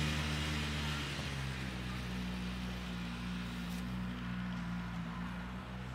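Snowmobile engine running steadily while towing an inflatable banana boat with riders across snow. Its pitch steps up slightly about a second in, and it slowly fades as it moves away.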